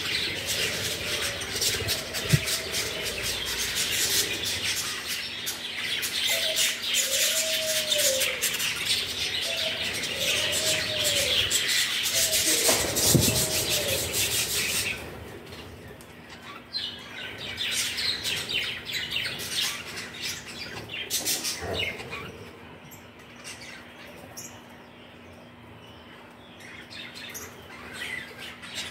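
A flock of budgerigars chattering loudly and continuously while feeding. About halfway through the chatter drops off suddenly as most of the birds fly away, leaving scattered chirps.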